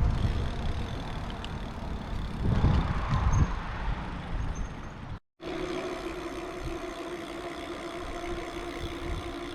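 Wind rumbling over the microphone while riding a bicycle, with louder gusts a few seconds in. After a brief cut-out of all sound about halfway through, a steadier running noise follows with a faint steady hum.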